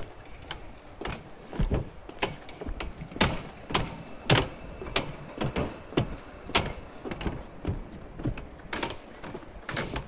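Footsteps of a person walking at an even pace on a footbridge deck, about two steps a second, over a faint steady city hum.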